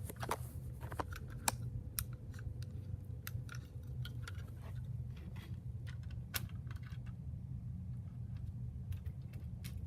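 Scattered light clicks and taps of a model locomotive being handled and set on its track, over a steady low hum.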